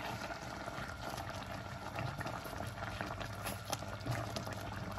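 Coconut milk with chicken boiling in a wok, a steady bubbling with many small pops.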